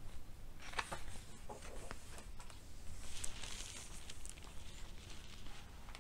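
A picture-book page being turned by hand: faint paper rustling with a few light taps of fingers on the page.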